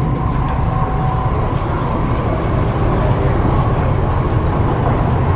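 MTR East Rail Line R-train running between stations, heard inside the carriage: a steady low rumble of wheels on track and traction equipment, growing slightly louder.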